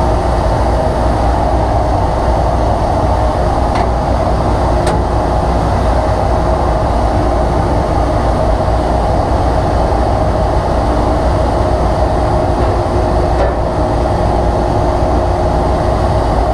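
Dust-extraction vacuum running steadily through a hose and wand, a continuous airflow noise with a steady hum, while dust is sucked out of the inside of a table saw. Two light ticks about four and five seconds in.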